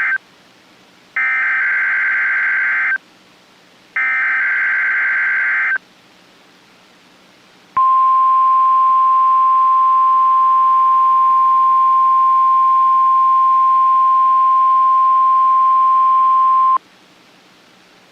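NOAA Weather Radio emergency alert signalling for a Required Weekly Test: the end of one SAME digital header burst, then two more bursts of rapid warbling data tones. After a short pause comes the steady 1050 Hz weather radio warning tone, held for about nine seconds before it cuts off sharply.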